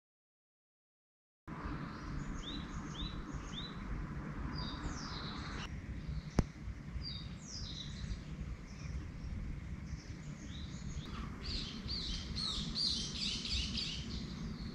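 Silence for about the first second and a half, then several birds chirping: a few quick falling chirps at first, growing into a busier chorus near the end, over a steady low rumble. A single sharp click a little past the middle.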